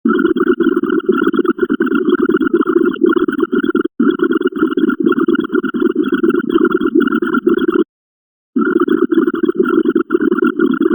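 A dense, rapid stream of short overlapping sound effects, several a second, as the binary count ticks upward. It drops out for an instant about four seconds in and stops for under a second near eight seconds before resuming.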